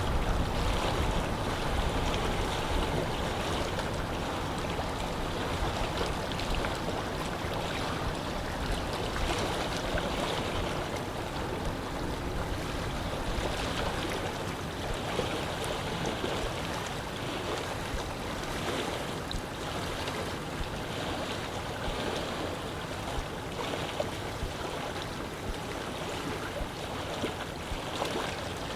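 Wind blowing over a lake, with small waves lapping at the water's edge. A low wind rumble is heavier in the first few seconds, then eases to a steady, gusting hiss.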